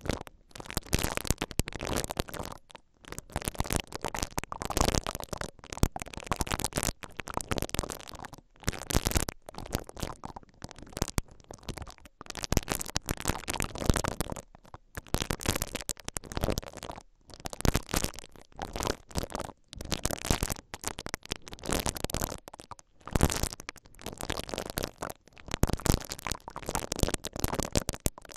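Silicone bristle ear-cleaning brushes rubbed and twisted against the grilles of two microphone capsules, making close, crackly scratching strokes with short pauses between them.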